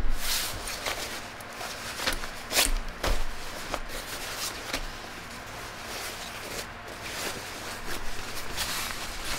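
A thick jacket being handled and turned over: fabric rustling with scattered knocks and clicks, and a sharp thump at the very start.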